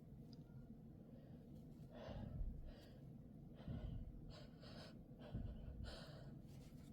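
Faint sniffs and short breaths through a nose stuffed and itchy with a head cold, several in a row with pauses between.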